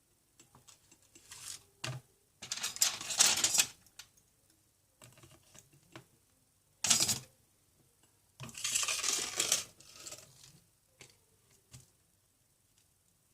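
Metal tweezers and small phone parts handled on a repair bench: scattered light clicks and three louder bursts of clattering and scraping of small hard parts.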